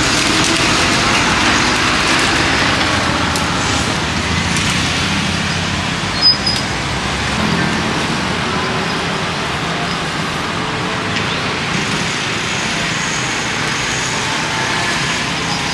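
Steady road traffic noise from passing cars and motorbikes, with one sharp knock about six seconds in.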